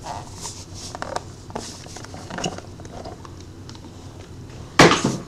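Hands sliding the lid off a trading-card box and handling it: soft scraping and rustling of the box, with one louder knock near the end.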